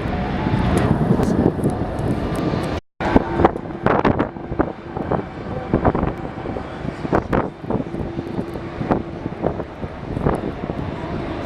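Jet airliner engine noise heard through strong wind buffeting the microphone, with many short knocks from the gusts. The sound cuts out for a moment about three seconds in.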